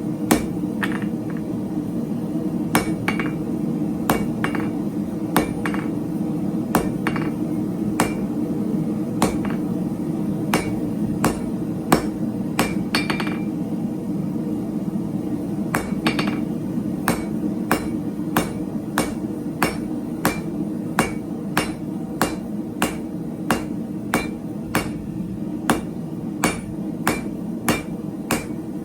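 Hand hammer striking 3/8-inch square steel stock on an anvil during hand forging, each blow ringing briefly. The blows fall unevenly about once a second at first, then settle into a steady beat of about two a second, over a steady low rumble.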